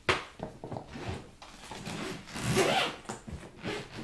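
Hands handling a hard-shell plastic suitcase, rubbing and scraping over its ridged shell in irregular strokes, loudest a little past halfway.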